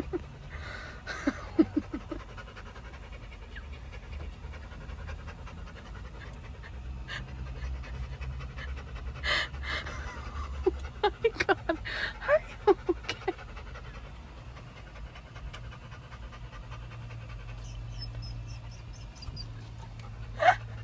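A dog panting, with a few short high whine-like squeaks near the start and again about ten to thirteen seconds in, over a low steady hum.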